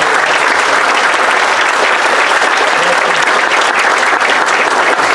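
Audience applauding, many hands clapping at a steady, even level.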